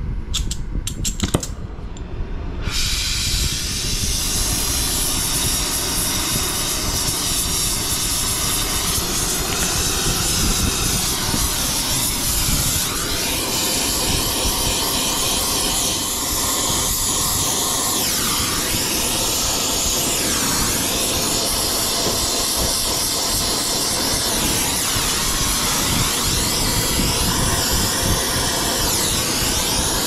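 A handheld gas torch clicks a few times, then lights about two and a half seconds in and hisses steadily, its flame on a copper refrigerant line joint being soldered into the air handler.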